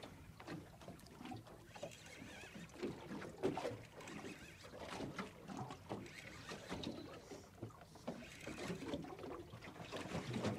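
Sea water lapping and slapping against the hull of a small drifting boat, with scattered irregular knocks and clicks.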